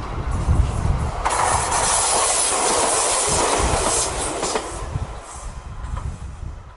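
Ichibata Electric Railway 2100-series electric train, the pink Shimanekko car, passing close by: wheels clattering over rail joints under a low rumble. It is loudest for about three seconds as the car goes past, then fades.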